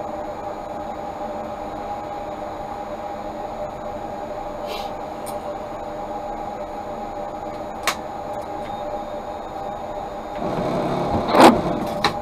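Tatra T3 tram heard from inside: a steady electrical hum with a few fixed tones and occasional clicks. Near the end a louder rush builds and ends in a sharp knock.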